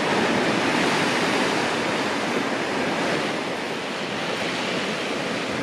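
Sea surf breaking and washing in over the shore as a steady rush of water noise, easing slightly after about three seconds.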